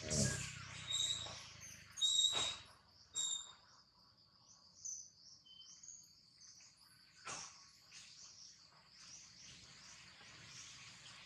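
Outdoor forest ambience: birds chirping in short high notes over a steady high insect drone, with a few brief sharp sounds, the loudest near the start.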